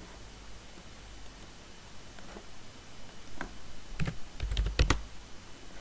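A few keystrokes and mouse clicks on a computer, bunched together from about three and a half to five seconds in, with a couple of heavier low knocks among them.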